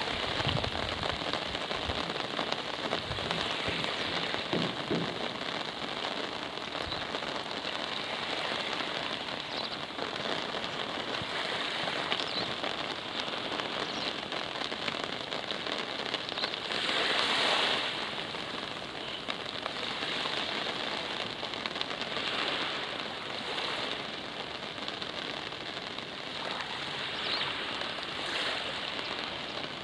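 Steady rain falling, with small waves of the Baltic Sea lapping at the sandy shore. A louder surge of hiss lasts about a second, two-thirds of the way through.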